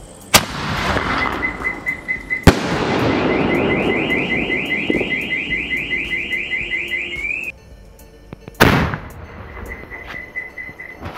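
Cock Brand small sky-shot firework bursting overhead with sharp bangs, one just after the start and a louder one about two and a half seconds in, each followed by crackling. A third bang comes near nine seconds. A car alarm sounds through it, first a pulsing beep and then a fast warble that cuts off abruptly about seven and a half seconds in, with the beeping returning near the end.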